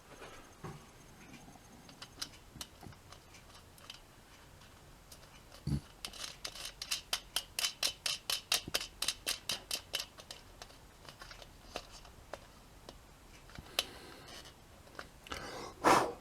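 Small parts of a battery clock movement being handled and fitted, with scattered light clicks and a knock, then a fast run of sharp clicks at about five a second for some four seconds, and a louder rustle near the end.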